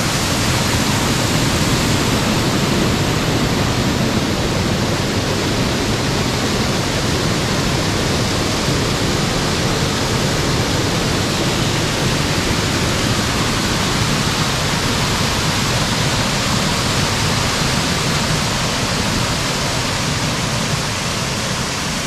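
Steady rush of a waterfall: an even, unbroken noise of falling water, easing a little near the end.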